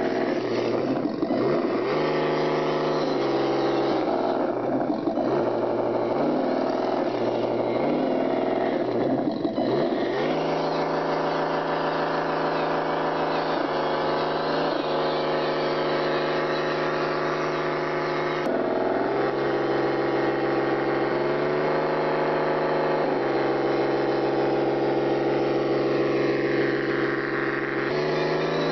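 Vehicle engine running at a steady volume, its pitch holding for several seconds and then sweeping up or down as the revs change, several times.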